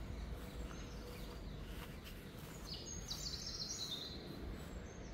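A songbird sings a short phrase of quick high notes about three seconds in, over a steady low rumble of wind on the microphone.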